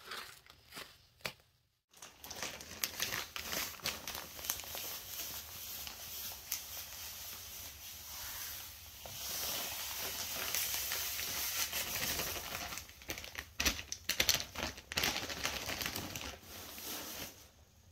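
Roma powdered laundry detergent pouring from its bag onto wet soap paste: a steady hiss of falling powder with the bag crinkling, and a few louder shakes about three-quarters of the way through.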